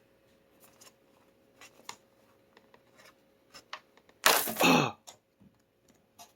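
Small plastic clicks as the laptop's back-panel clips are pried loose, then, about four seconds in, a loud sharp clatter lasting about half a second as the panel snaps free.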